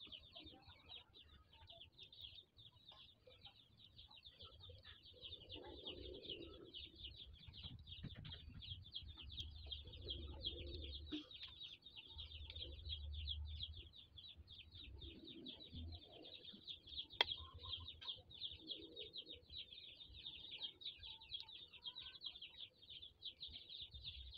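Faint birds in the background: a dense, steady high chirring, with a few lower calls now and then.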